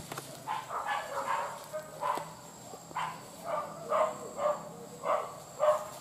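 Hunting dogs barking in a quick run of short barks, a little under two a second, as they chase a wild boar.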